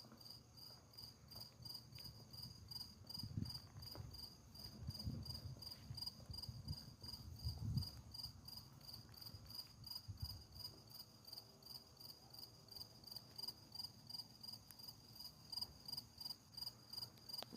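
Crickets chirping steadily, a high note pulsing evenly about three times a second. Low rumbles come and go in the first half.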